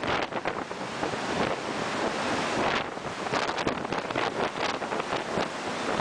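Strong storm wind buffeting the microphone in uneven gusts, over the rush of rough seas breaking against the ship and the platform legs.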